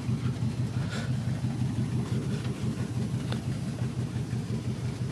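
4x4 vehicle engine running with a steady low rumble, with a couple of faint brief ticks over it.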